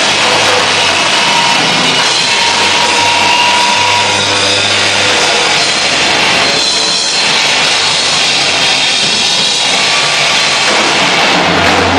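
Live harsh noise music: a loud, dense, unbroken wash of noise with no beat, and a faint brief tone rising out of it a few seconds in.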